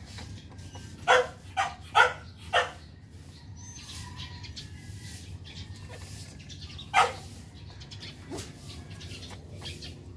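A dog's short yelps: four in quick succession about a second in, then a single one near the middle.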